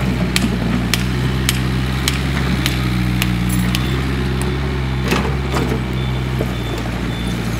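Komatsu PC58 mini excavator's diesel engine running steadily under work, with sharp knocks about twice a second through the first half that thin out after that.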